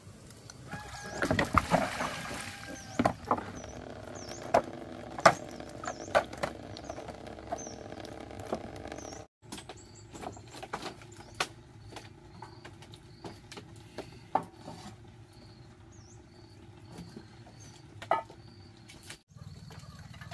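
Wood fire crackling on an open hearth, with sharp pops and clicks scattered throughout and small birds chirping in the background.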